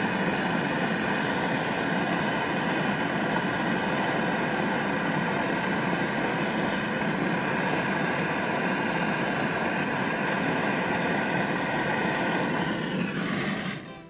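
Portable butane gas torch burning with a steady, even roar, shut off about half a second before the end.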